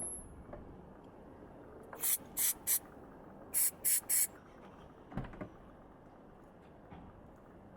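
Aerosol can of silicone lubricant spray giving six short squirts in two quick groups of three, with a light knock a little later.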